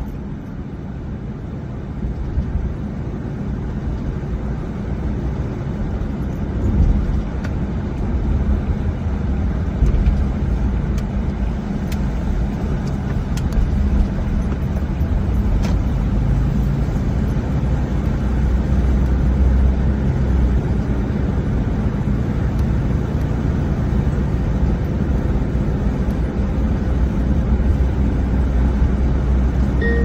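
Car road noise heard from inside the cabin while driving: a steady low rumble that grows gradually louder over the first half.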